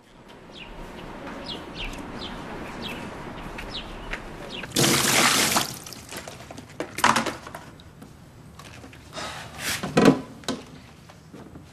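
Small birds chirping over a steady background hiss, then water splashing and pouring at basins several times, the loudest splash about five seconds in and more near seven and ten seconds.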